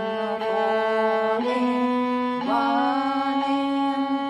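Solo viola bowing slow, sustained notes that step upward in pitch. The last note, from about two and a half seconds in, is held long.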